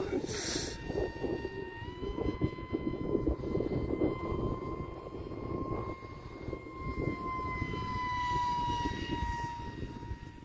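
Radio-controlled model airplane's motor and propeller giving a steady high whine that steps up in pitch about two seconds in and sags slightly near the end, over wind rumble on the microphone.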